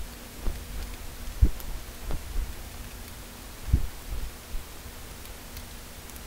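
Hands and a screwdriver working inside an opened HP ze4700 laptop: scattered dull knocks and taps on the plastic case and parts, the loudest about a second and a half in and again near four seconds, over a faint steady hum.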